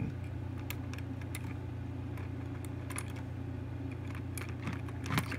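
Faint, scattered light clicks and taps as a needle-tip oiler works along the plastic wheels and trucks of an HO model train tender, with a slightly louder tap about five seconds in, over a steady low hum.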